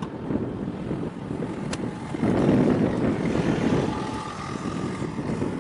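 Wind buffeting the microphone over a low rumble from distant ship and tug engines. It grows louder for a couple of seconds from about two seconds in, and a faint steady tone sits above it near the middle.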